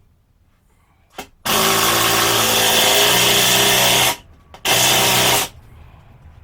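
Power drill running: a quick blip, then a steady run of about two and a half seconds, a short pause and a second shorter run, as when driving screws to fasten a shelf.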